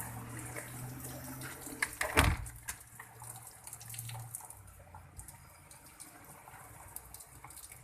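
Water trickling and dripping, with a single knock about two seconds in.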